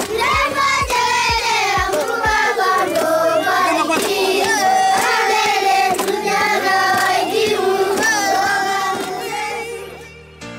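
A group of young Maasai kindergarten children singing together in unison, fading out near the end.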